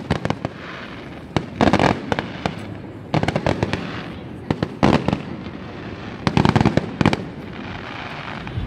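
Aerial fireworks display: shells bursting in clusters of sharp bangs a second or two apart, with a steady crackling haze between them.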